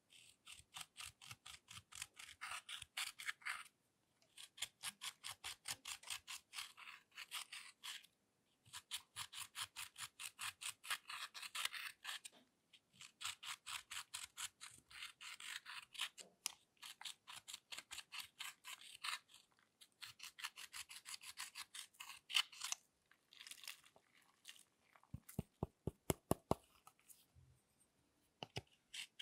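A metal-tipped tool scraping pressed eyeshadow powder out of the pans of a plastic makeup palette: quick, crisp scratching strokes, several a second, in runs of a few seconds with short pauses between. Near the end comes a run of sharper, lower-sounding strokes.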